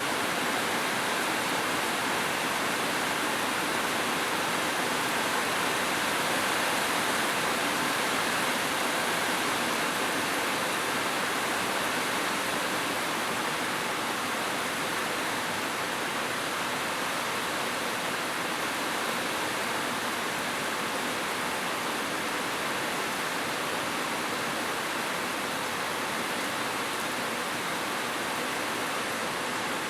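Heavy rain falling on a roof, steady and unbroken.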